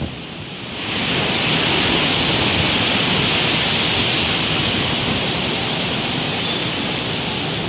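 Typhoon wind blowing hard, a steady rushing noise that drops briefly in the first second, then comes back up and holds.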